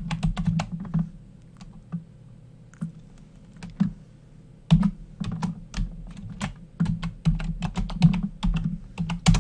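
Typing on a computer keyboard, entering a username and password: a quick run of keystrokes at the start, a few scattered taps, then a steady run of keystrokes from about five seconds in.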